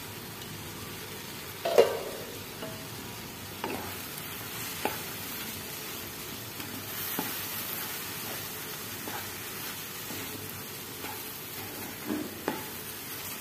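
Wooden spatula stirring and scraping a thick grated-carrot and semolina mixture in a pan on low heat, over a steady sizzle. A sharp knock about two seconds in, and a few lighter knocks of the spatula against the pan, two of them close together near the end.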